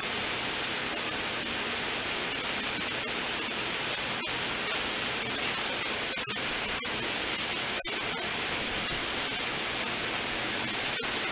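Steady sizzling of meat, peppers and onions frying on a hot flat-top griddle, an even hiss.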